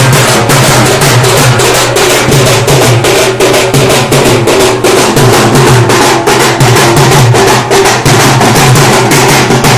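Large barrel drums beaten with sticks in a fast, unbroken rhythm of several strokes a second, very loud and close.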